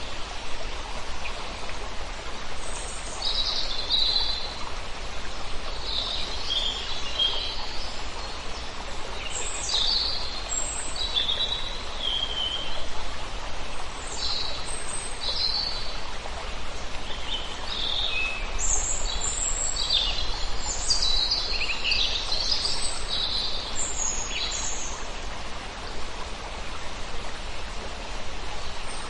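Songbirds chirping and singing over a steady rush of flowing water, with the calls thickest about two-thirds of the way through.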